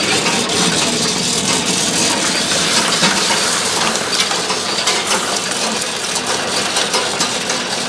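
Lollipop forming machine running: a steady, loud mechanical clatter packed with sharp clicks and knocks.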